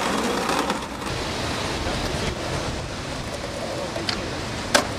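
Steady rushing noise of surf and wind, with a single sharp skateboard clack against the top of a shelter near the end.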